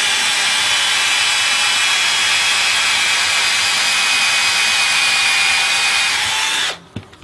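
Electric drill boring a hole into the end of a wooden block, the motor running steadily under load. Near the end it stops for a moment, then starts up again.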